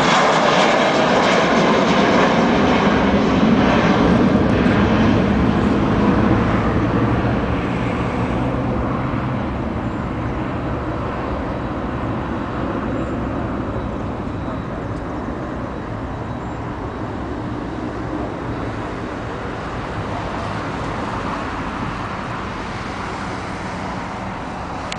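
Jet airliner's engines at take-off thrust as it lifts off and climbs out: a loud, steady rumble that fades gradually from about seven seconds in as the plane draws away.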